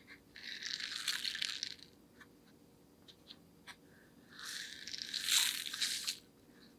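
Glossy slime being squished and worked, crackling in two spells of about a second and a half each, a few seconds apart, with small pops in between.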